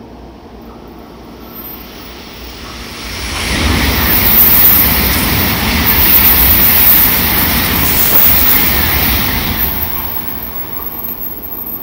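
An N700-series Shinkansen train passing at speed on the adjacent track. Its rushing noise swells over about two seconds, stays loud for about six, then fades away.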